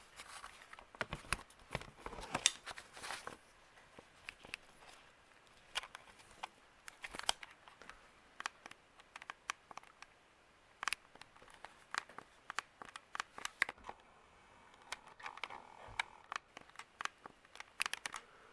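Handling noise: faint, scattered clicks and crinkly rustles, with short quiet gaps between them.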